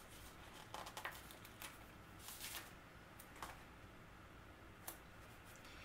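Near silence with a few faint rustles and soft clicks as a sticker is peeled off a sticker sheet and pressed onto a paper planner page.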